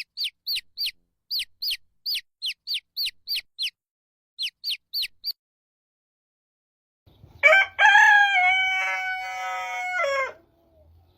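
A chick cheeping in a quick run of short, high, falling peeps, about three to four a second, that stops about five seconds in. After a pause a rooster crows once, a long held call of about three seconds that drops in pitch at the end.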